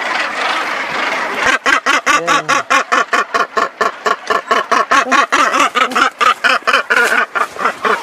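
Northern gannet calling close up: a harsh, rapid, grating string of calls, about six a second, starting about a second and a half in, over a steady hiss of background noise.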